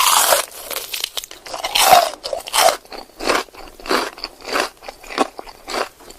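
Someone biting into and chewing crisp food, a steady run of about ten loud crunches, roughly two a second.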